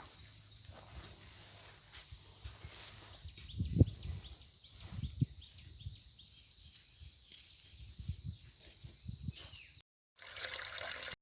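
Steady high-pitched chorus of insects, with a few low soft thumps in the middle; it cuts off abruptly near the end.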